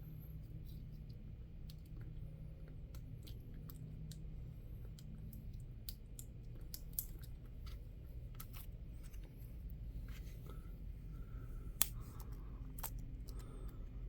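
Scattered small clicks and crinkles of plastic being handled, as protective film is peeled off a video doorbell, over a steady low hum. Two sharper clicks stand out, about seven seconds in and again near twelve seconds.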